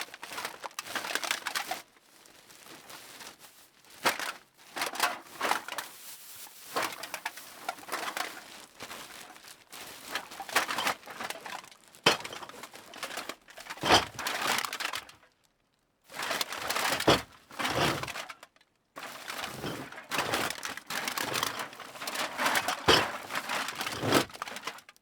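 Cans being put into a bag: the bag rustles and crinkles in irregular bursts while the cans knock and clink together in sharp hits, with two brief pauses about midway.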